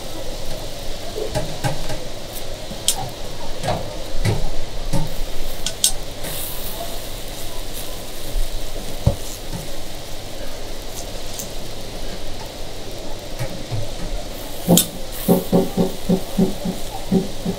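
Kanom buang batter being spread in circles with a small round spreader on a hot flat steel griddle: steady scraping and sizzling, with scattered light clicks of the tool on the plate and a run of quicker strokes near the end.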